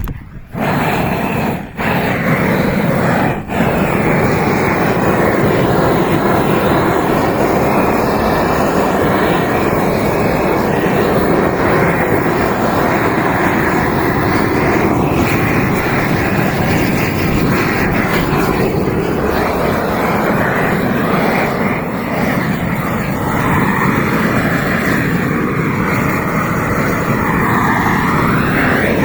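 Propane roofing torch burning steadily as it heats torch-on bitumen membrane; the flame starts about half a second in and dips briefly twice in the first few seconds.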